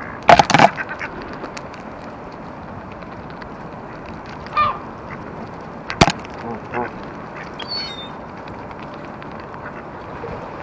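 Geese honking and ducks quacking, with the loudest burst of honks about half a second in and scattered calls after it. A single sharp click comes about six seconds in.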